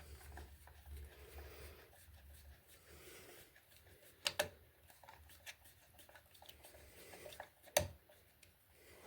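Faint scraping and handling noises of hand work on a wall socket as its screws are worked in, with a sharp click about four seconds in and another near the end.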